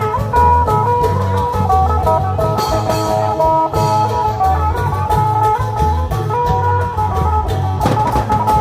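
Isan klong yao long-drum band music: a plucked-string lead melody over a steady pulsing drum beat, played loud and continuous.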